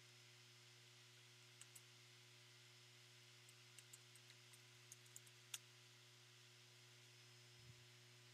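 Faint computer keyboard keystrokes: about a dozen scattered clicks, bunched in the middle, over a steady low hum and hiss.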